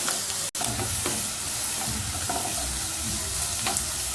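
Chopped ginger and garlic frying in hot gingelly oil, a steady sizzle with light scrapes as the pan is stirred; the sound drops out for an instant about half a second in.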